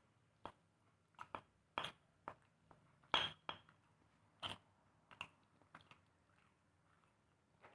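Kitchen utensils and dishes clinking and knocking: about a dozen light, irregular taps and clicks, the loudest about three seconds in with a short ring.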